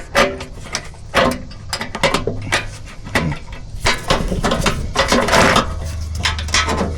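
Irregular metallic clicks, clanks and rattles from the hood and body panels of a compact tractor being handled and taken off, with a dense run of them about four to five seconds in.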